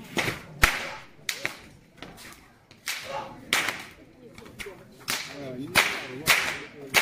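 Sharp whip-like cracks from a Shaolin monk's fast kung fu strikes and swings, about ten of them at uneven intervals, with faint crowd voices behind.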